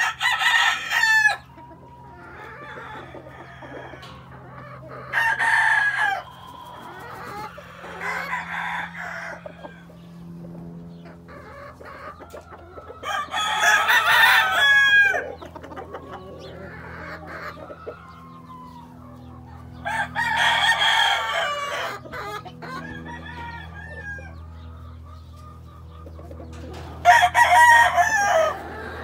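Sweater-bloodline gamefowl roosters crowing in turn, about six crows spread through, each a second or two long, with softer clucking calls between.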